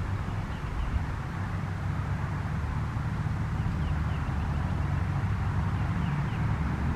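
Steady low outdoor rumble and hiss with no siren tone, broken a few times by faint short falling chirps, in pairs, of a small bird.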